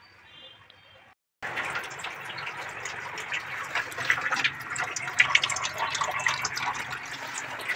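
Water running out of a reverse-osmosis purifier's thin white drain tube and splashing into a stainless steel sink: a steady trickling splash that starts abruptly about a second and a half in.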